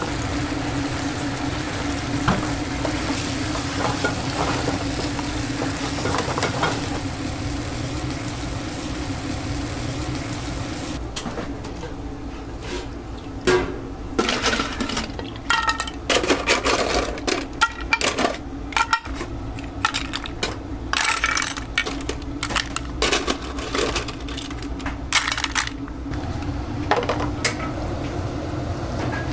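Seafood sizzling in a frying pan as it is stirred, then from about ten seconds in a long run of sharp clinks as clam and scallop shells are picked up with tongs and dropped into a pan.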